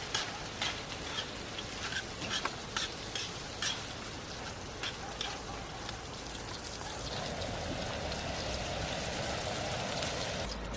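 Food frying in a hot pan: a steady sizzle with sharp crackling pops in the first few seconds, settling into a smoother, slightly louder hiss about seven seconds in.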